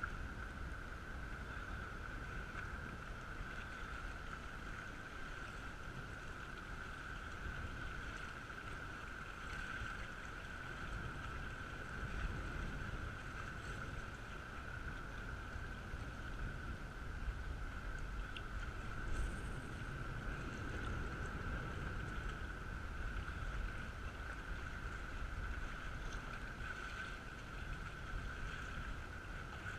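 Faint, steady outdoor rumble of wind and water at a rocky shoreline, with a thin steady high whine throughout and a few faint clicks.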